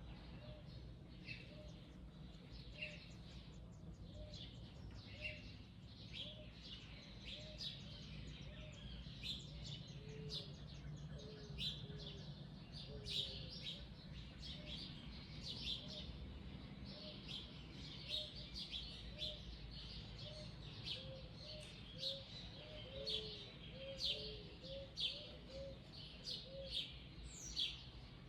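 Mixed wild birds singing and chirping: many quick high chirps and short song phrases overlap, with a low note repeated steadily, about once a second, underneath.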